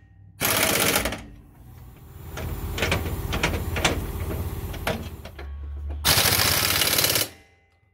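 Impact wrench running in the bolts of a new rear lower control arm: a burst of about a second near the start and another of about a second near the end. Between the bursts come scattered metal clinks and knocks of tools and bolts.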